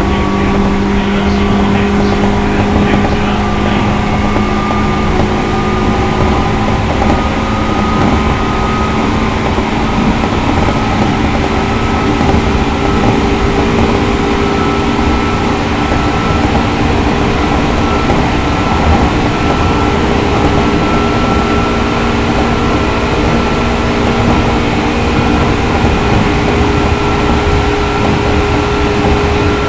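Running sound of a JR 205 series electric train: a steady rumble of wheels on rail, with a few steady whining tones that hold an almost constant pitch.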